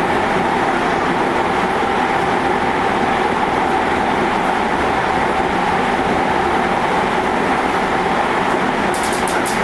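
Seibu 6000 series GTO-VVVF electric train running at speed through a subway tunnel, heard inside the car: a steady rumble of wheels on rail with a steady tone. A few quick clicks come near the end.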